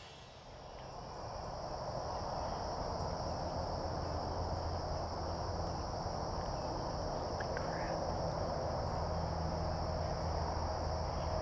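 Steady, high-pitched chorus of crickets over a low background hum, fading in over the first two seconds.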